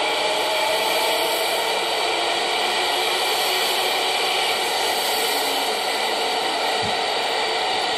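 Kintetsu electric train running past along an underground station platform: a loud, steady rush of running noise with a few faint steady tones through it, echoing in the enclosed platform.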